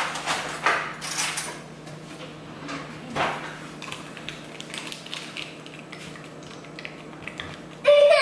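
A spoon scraping and clicking in a plastic tub of sour cream as it is scooped out, after the tub's lid seal is peeled back. There are light rustles early and one louder scrape about three seconds in.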